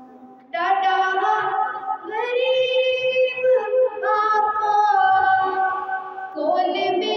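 A woman's unaccompanied voice singing a naat, an Urdu devotional song, into a handheld microphone. Her singing comes in about half a second in with long held notes that bend in pitch, pausing briefly twice for breath.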